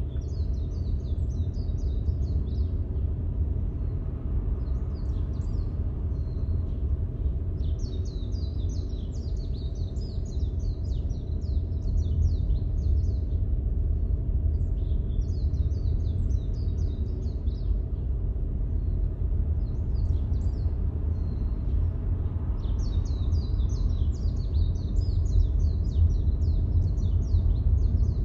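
Steady low road rumble of a car driving, heard from inside the cabin, overlaid by repeated bursts of high chirping that come and go every few seconds.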